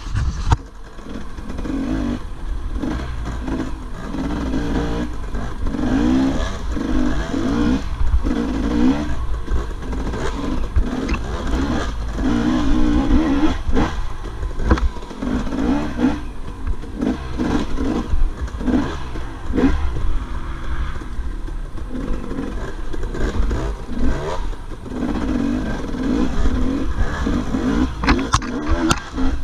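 Dirt bike engine revving up and easing off again and again as it is ridden over a rough trail, with clattering knocks from the bike over bumps. Heard close up from a camera mounted on the bike.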